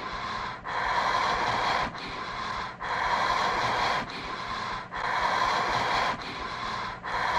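Heavy breathing, drawn in and out about once every two seconds as a hissing rush of air.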